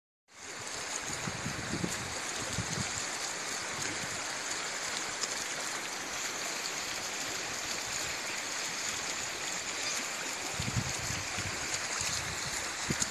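Mountain river flowing over stones: a steady rush of running water, with a few brief low bumps about two seconds in and again near eleven seconds.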